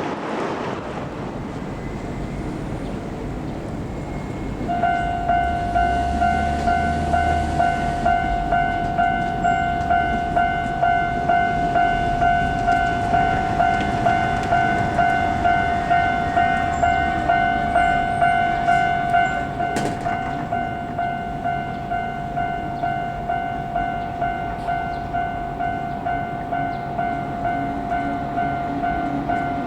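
Level crossing warning bell on the Keisei Kanamachi Line, starting about five seconds in and ringing on in even repeated strikes about one and a half times a second. It gets a little quieter after about twenty seconds, and there is one sharp click around the same time.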